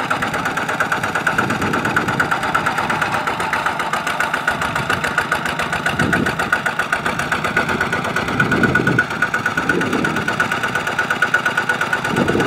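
Single-cylinder diesel engine of a two-wheel walking tractor running steadily, with a fast even firing rhythm.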